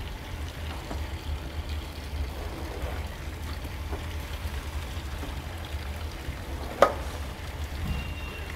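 Hot soy milk draining and splashing through a hanging cloth straining bag while tofu is made, over a steady low rumble. One sharp clank stands out about seven seconds in.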